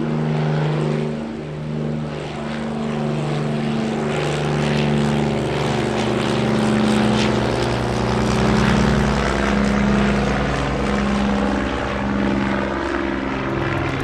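Single-engine high-wing propeller plane flying a low pass, its engine and propeller giving a steady drone that shifts in pitch a few times and is loudest just past the middle.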